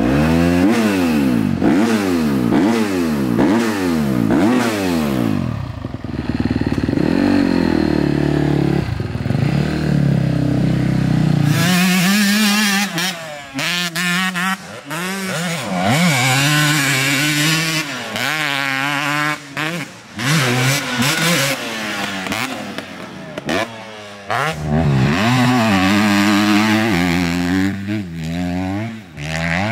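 Dirt bike engine revving up and down over and over as it is ridden, its pitch climbing and dropping with throttle and gear changes. About twelve seconds in the sound changes abruptly, with less low rumble.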